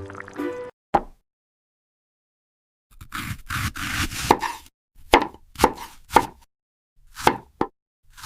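Knife chopping food on a cutting board, a cartoon sound effect: one chop, a rougher stretch of scraping cuts, then a string of separate quick chops.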